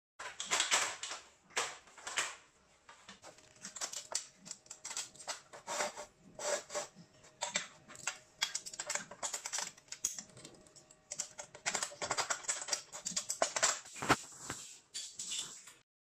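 Repeated metal clicks, clacks and knocks from handling an aluminium tripod's telescoping legs and locking pins, with steel chain links clinking toward the end.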